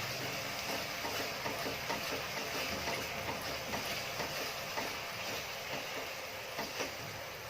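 Spatula stirring and scraping a thick ginger-and-jaggery mixture in a pan, giving many small irregular scraping clicks over a steady hiss. The mixture has been cooked down to a thick, halwa-like dough with ghee.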